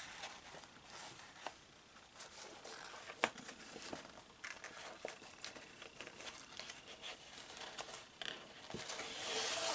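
Faint rustling and small clicks of paper being handled as a ribbon is pushed through a slit in it, with a sharper tick about three seconds in and a longer rustle near the end.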